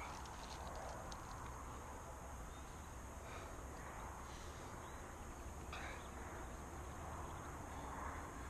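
Faint outdoor ambience: low wind rumble on the microphone under a steady high hiss, with a few light clicks in the first second or so and a couple of faint short chirps later.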